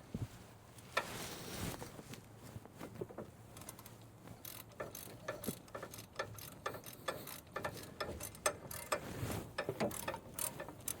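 Hand ratchet wrench clicking in short, irregular runs of strokes, more busily in the second half, as a fastener is worked during brake reassembly.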